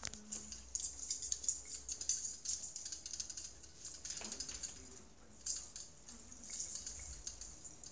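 Artificial Christmas tree branches rustling and crackling as a kitten climbs through them, a dense run of small clicks with baubles jostling.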